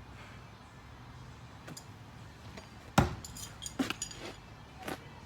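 Steel throwing knives striking a wooden throwing wall: a sharp strike about three seconds in, the loudest, then further strikes with light metallic clinks over the next two seconds.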